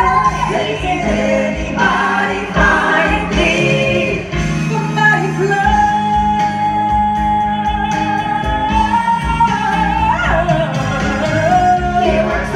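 Live band music with a lead singer, heard from the audience. Midway a single sung note is held for about four seconds.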